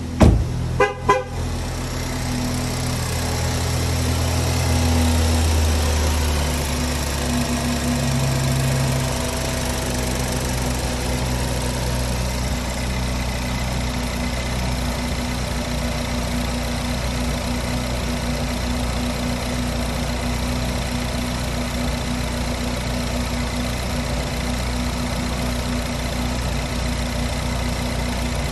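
2013 Ford Focus ST's turbocharged 2.0-litre EcoBoost four-cylinder, breathing through a 2.5-inch Magnaflow exhaust, idling steadily shortly after a cold start; its idle drops a little about six seconds in. Two sharp knocks near the start as the car door is shut.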